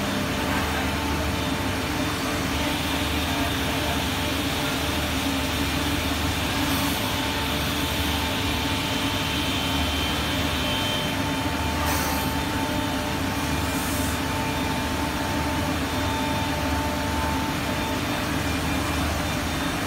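Five-axis CNC wood router running: a steady spindle whine and machine hum, brighter for several seconds in the first half, with a few faint ticks.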